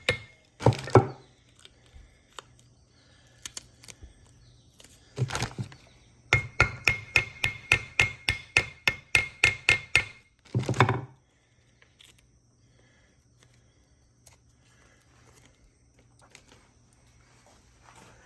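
Rapid metallic knocking, about three sharp ringing strikes a second for around four seconds, with a louder, longer clatter near the start and another just after the knocking stops.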